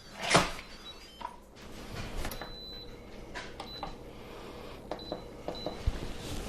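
Instant Pot being closed and set for a 12-minute pressure cook: a sharp click, then clicks of the lid and keypad and several short high beeps from the control panel, the longest about two and a half seconds in.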